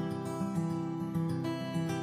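Background music: acoustic guitar playing a steady, repeating pattern of plucked notes.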